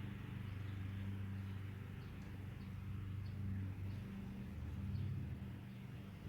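A steady low mechanical hum, like a small motor running, over faint background noise.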